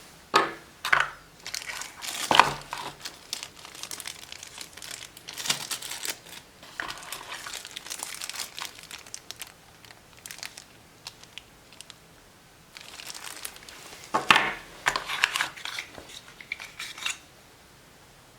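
Packaging being crinkled and handled during an unboxing: bursts of crinkling and rustling with sharper crackles, a pause of about two seconds a little after the middle, then another run of crinkling before it stops.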